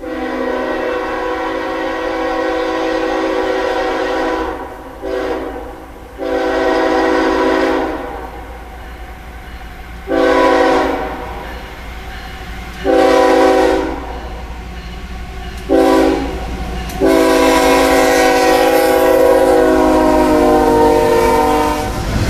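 Multi-chime air horn of the lead locomotive, a GE ES44AC (UP class C45ACCTE), sounding a series of long and short blasts for a grade crossing, the last blast held long as the locomotives reach the crossing. The low rumble of the approaching diesels grows near the end.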